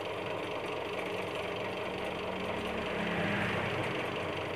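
Homemade coil-winding machine running: a used washing-machine motor driving a washing-machine gearbox through a small fan belt. It turns at very low speed with a steady mechanical hum.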